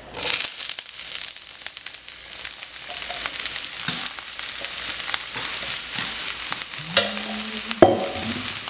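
Diced onions, bell peppers and trumpet mushrooms dropped into hot oil in a cast-iron skillet: a sudden loud sizzle that settles into steady frying with crackles. There is a sharp knock near the end.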